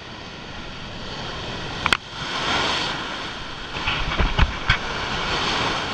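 Surf surging and washing over rocks, heard muffled through a waterproof camera housing, swelling about two seconds in. A sharp knock comes about two seconds in, and a few more knocks follow between four and five seconds.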